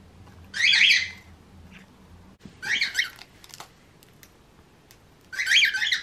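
A pet parrot calling three times, short high calls that waver quickly in pitch, about two and a half seconds apart.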